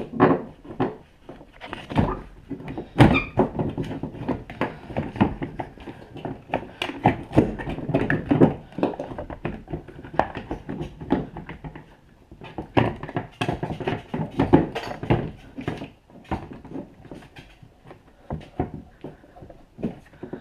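Plastic fuel-filler shroud being pried and wiggled loose by hand from the truck body: a steady run of irregular plastic clicks, knocks and creaks, the shroud still caught on foam.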